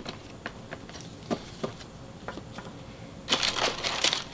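Light clicks and taps of trading cards being handled. About three seconds in, a loud crinkling of a card pack's wrapper starts as the next pack is opened.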